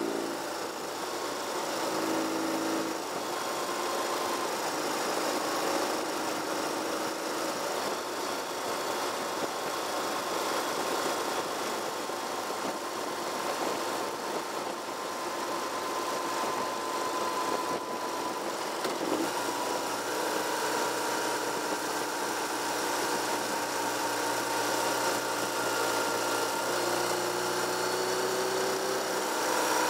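Car driving along a paved highway: steady engine and tyre noise, with the engine note changing pitch, dropping about three seconds in and rising again a few seconds before the end.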